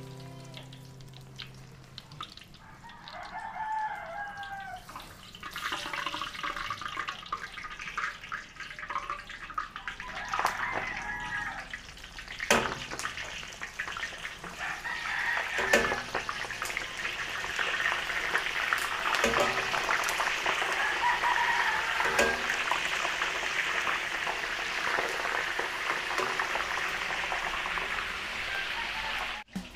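Embutido frying in a wok of hot oil, a sizzling hiss that builds and stays loud through the second half, with a few sharp knocks. A rooster crows several times in the background.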